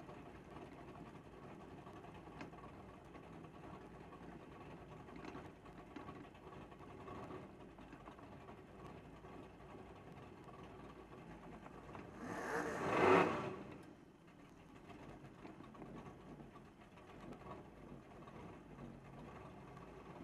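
Fuel-injected gasser's engine idling with a rhythmic mechanical clatter, heard from inside the car. About twelve seconds in, a loud swell of engine noise rises and falls over roughly two seconds.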